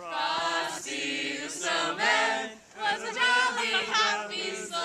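A group of young people singing together, unaccompanied, several voices held on sustained notes.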